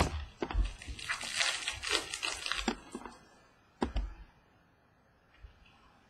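Baseball cards handled on a wooden tabletop: a sharp tap as cards are set down, then about two seconds of dense crinkly rustling, and a couple of knocks just before four seconds in.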